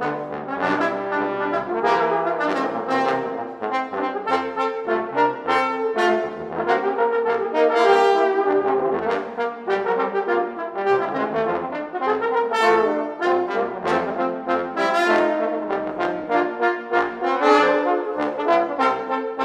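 Trombone quartet playing an instrumental passage, several trombones in harmony with many quick, separately started notes.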